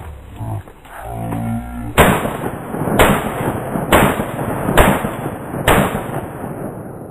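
Five gunshots in steady succession, about a second apart, each leaving a long echo that dies away after the last shot.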